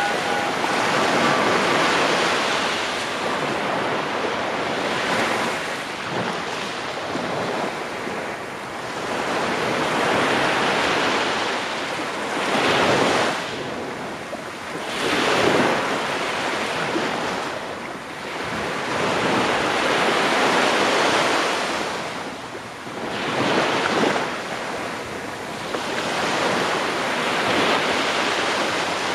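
Small waves washing up a sandy beach and drawing back, the surf surging louder every few seconds, with wind buffeting the microphone.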